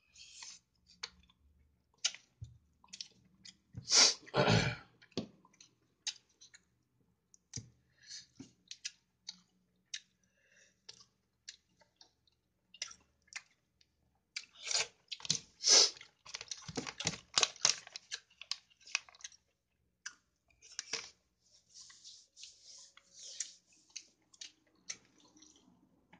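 Close-up chewing and mouth sounds of someone eating rice by hand, with scattered small clicks and crackles. There is a louder noisy burst about four seconds in, and a busier run of crackling clicks in the middle.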